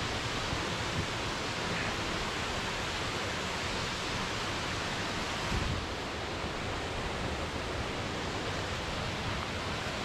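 Waterfall rushing steadily, an even wash of water noise.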